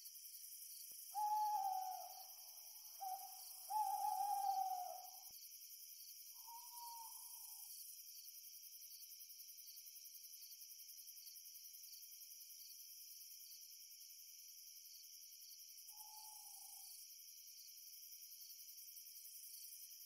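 Owl hooting: three hoots close together in the first five seconds, then two fainter single hoots near seven and sixteen seconds, over a steady high-pitched chorus of crickets.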